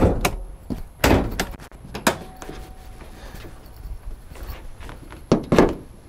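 Several sharp knocks and thunks from working a 2005 Nissan 350Z's clutch pedal and hood, a few in the first two seconds and a couple more near the end.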